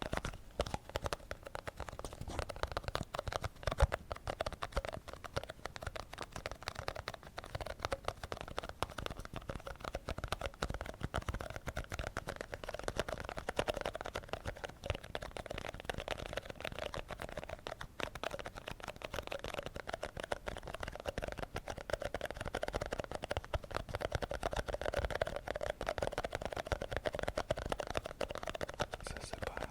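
Fast, continuous ASMR tapping on an object, many light taps a second.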